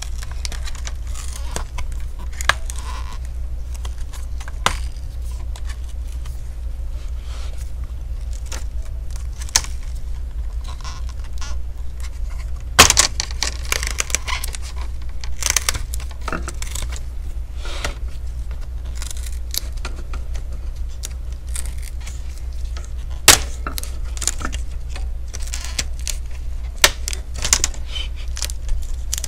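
HP Omen 15 laptop's screen bezel being pried away from the LCD panel with a thin pry tool: scattered clicks, scrapes and crackles as the bezel and its double-sided tape come apart. The sharpest clicks come about halfway through and again a little after.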